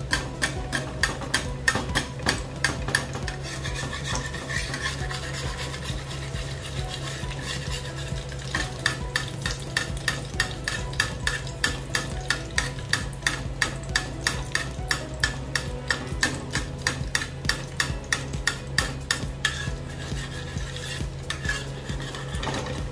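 Metal slotted spatula scraping and tapping against a frying pan, about two strokes a second, as it works under a fried egg, with the egg sizzling in the pan beneath.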